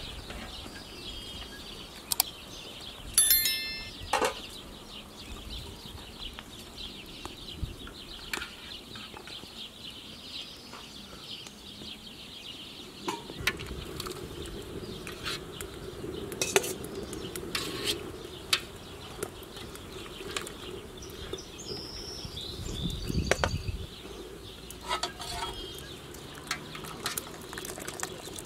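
Metal clinks, knocks and scrapes of a lid and a wire skimmer against an aluminium cooking pot as boiled, hollowed potatoes are lifted out of the water, with one ringing clang a few seconds in. From about halfway on, a steady low rumble runs under the clinks.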